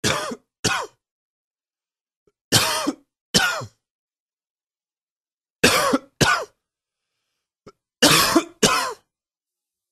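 A man coughing in pairs: four double coughs, the pairs about two and a half seconds apart.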